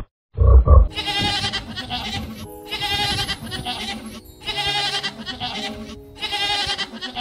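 A frog croaking in quick low pulses for about half a second, then goats bleating in four long, wavering calls over soft background music.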